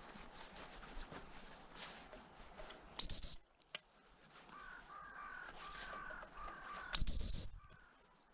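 Gundog whistle blown close by: a quick series of three shrill pips at one high pitch about three seconds in, then a longer run of rapid pips about four seconds later. Softer, lower chirps repeat in between.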